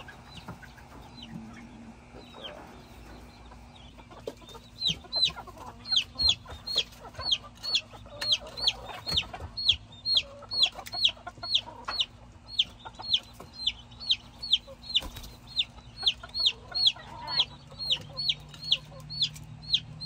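Baby chick peeping loudly and insistently: a steady run of short, sharp, falling peeps, two or three a second, starting about five seconds in, over quieter hen clucking.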